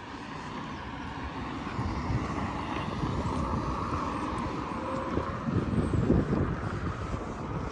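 A vehicle passing by, its noise building to a peak around the middle and then fading.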